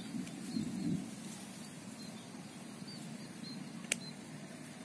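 Outdoor ambience: a steady low rumble with faint short high chirps scattered through it, a brief louder rustle early on and a single sharp click near four seconds in.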